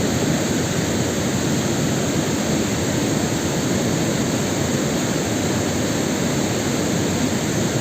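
Steady rushing of a nearby mountain stream or waterfall, a constant even noise without break.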